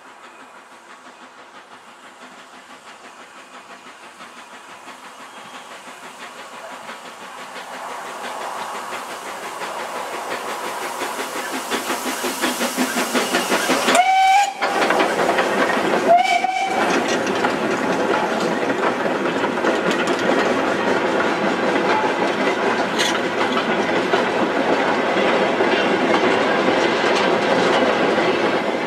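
Steam locomotive hauling a goods train draws nearer, its sound growing steadily louder, and gives two short whistle blasts about two seconds apart as it comes alongside. The goods wagons then run past close by with a steady rhythmic rail noise.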